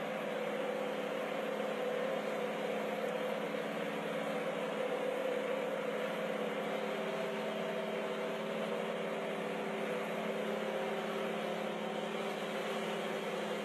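Large New Holland tractor's diesel engine running steadily under load as its wheels spin in soft ground, the engine note shifting slightly in pitch about halfway through.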